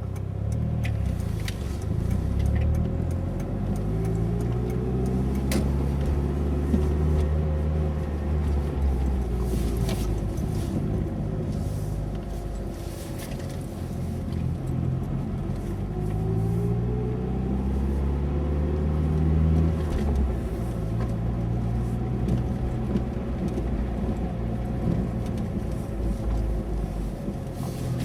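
Mitsubishi Lancer Evolution's turbocharged four-cylinder engine and road noise while driving. The engine pitch climbs under acceleration, drops at about 9 seconds, climbs again and falls away at about 20 seconds, with a few faint clicks.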